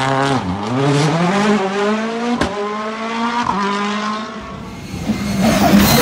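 A rally car's engine pulls away hard, its note climbing as it accelerates, with a sharp crack about two and a half seconds in. The sound then fades. About five seconds in, a Skoda Fabia R5 rally car arrives loudly at a hairpin.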